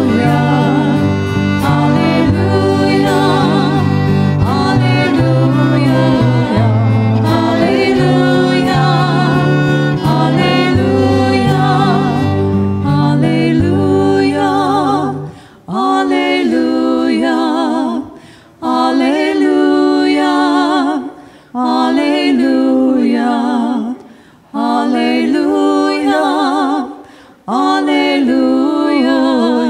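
Two women singing a worship song into microphones with two violins over a low bass line; about halfway through the bass and violins drop out and the voices go on unaccompanied, phrase by phrase with short breaks between.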